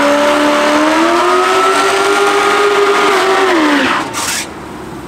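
A muscle car's engine revved hard and held at high revs during a burnout, its pitch climbing and holding over a hiss of spinning tyres. About four seconds in the revs drop away, followed by a brief hiss.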